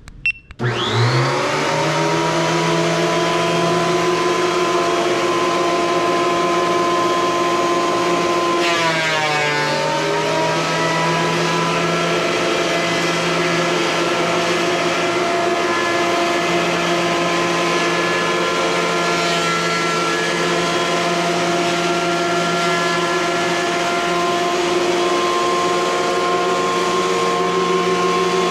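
Craftsman benchtop thickness planer switched on, its motor rising to speed within a second and then running with a steady loud whine. About nine seconds in its pitch dips and recovers once, as when the planer briefly slows under load feeding a rough chainsaw-milled plank.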